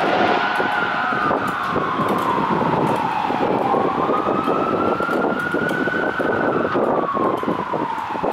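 Fire truck siren in a slow wail, its pitch rising and falling in long sweeps of a few seconds each, over the rumble of road traffic.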